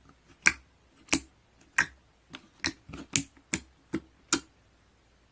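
An uneven run of about ten short, sharp taps or clicks over four seconds, stopping near the end.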